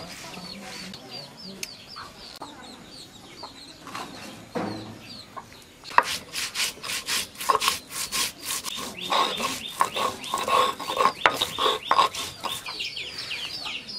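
Grinding stone (shil-nora) scraping: the hand stone is rubbed back and forth over the stone slab to crush spices, starting about six seconds in as a quick run of rasping strokes. Before that there is softer rubbing as the paste is gathered by hand. Chickens cluck throughout.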